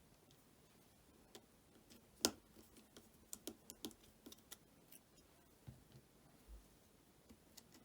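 Faint, irregular small clicks and taps of a precision screwdriver and small tools against the iPhone 8's internal parts while the home button screws are taken out; the loudest click is a little over two seconds in.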